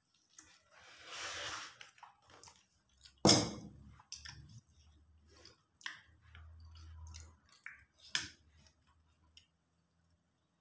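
Plates, steel spoons and banana-leaf parcels handled on a table: a rustle about a second in, then one sharp knock a little over three seconds in as a plate is set down, followed by a few lighter clicks and taps.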